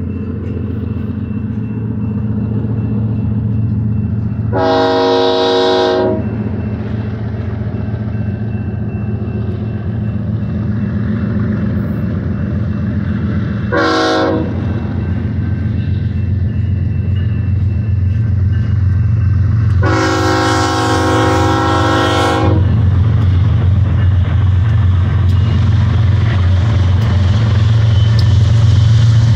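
BNSF diesel locomotive air horn sounding three times: a blast of about a second, a short toot, then a longer blast. Under it runs the steady rumble and wheel noise of a double-stack container train, which grows louder near the end as the westbound locomotives pass close by.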